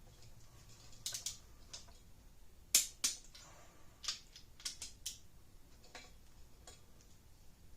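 Click-type torque wrench working a cylinder head stud: a string of irregular sharp metallic clicks and ratchet ticks, the loudest a little under three seconds in, as the stud is brought up to 60 foot-pounds.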